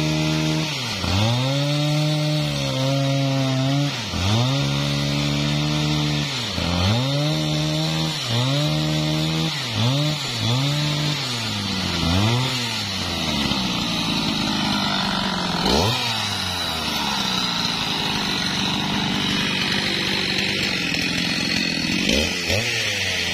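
Husqvarna 395XP two-stroke chainsaw ripping lengthwise along a sengon log, its engine note dipping under load and picking back up every second or so. Later it runs steadier at high revs, with a brief rise in pitch about halfway through.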